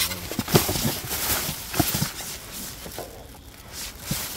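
Rummaging through discarded items in a dumpster: irregular knocks, rustles and clatter of boxes and bags being moved.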